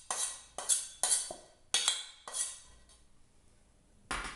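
A metal pan knocked repeatedly against the rim of a plastic mixing bowl, about five sharp knocks half a second apart, each ringing briefly. After a short pause there is one more knock near the end.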